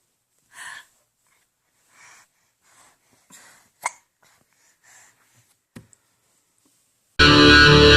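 A young child hiccupping: a string of short, soft hiccups about a second apart, one sharper than the rest midway. Loud distorted electric-guitar music starts abruptly near the end.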